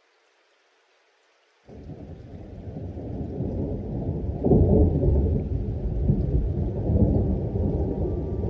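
Near silence, then a deep rumble of thunder starts suddenly about two seconds in, swells to its loudest around the middle and keeps rolling.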